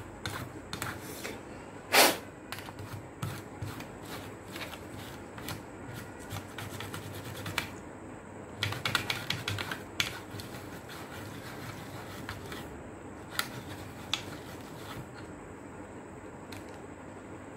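A cloth rubbing over an LED board on a metal plate, with scratchy wiping and irregular clicks and knocks as the board and plate shift on the bench. There is one loud knock about two seconds in and a quick run of clicks around nine seconds.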